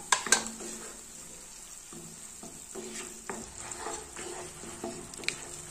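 Spatula stirring and scraping a thick spice paste frying in oil in a nonstick karahi, with a low sizzle and a few sharp taps of the spatula on the pan near the start, midway and near the end. The masala is being fried on low flame until the oil separates.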